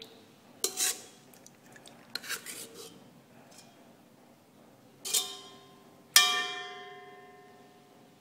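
Metal spoon stirring thick batter in a stainless steel bowl: a few scrapes and clinks against the bowl, then two sharp strikes on the bowl about a second apart, the second and louder one ringing out for about two seconds.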